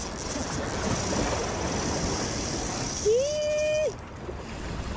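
Shimano Stradic 1000 spinning reel whirring with a fine high buzz as line runs through it during the fight with a bonito, stopping about four seconds in, over steady surf and wind. About three seconds in a short voice-like note rises, holds briefly and drops; it is the loudest sound.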